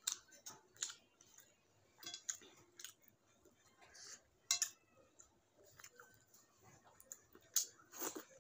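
Close-up sounds of someone eating rice and curry by hand: wet chewing and lip smacks, with irregular sharp clicks as fingers mix the rice on the plate and carry it to the mouth.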